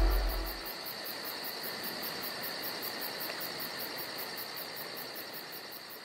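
A steady insect chorus: a high, continuous trill with a fast, even pulsing chirp above it, about six pulses a second. The last notes of music die away in the first second, and the chorus fades slightly near the end.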